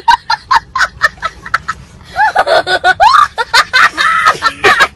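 Someone laughing hard: rapid short high bursts at first, then longer squealing stretches that rise and fall in pitch.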